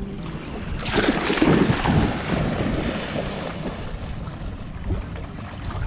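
A Belgian Malinois plunging into lake water about a second in: a loud splash, then splashing and sloshing that fade as it swims off. Wind rumbles on the microphone underneath.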